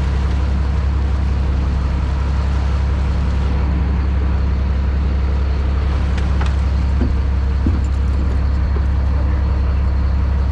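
Boat engine running steadily, a constant low hum, with a few faint clicks and knocks about six to eight seconds in.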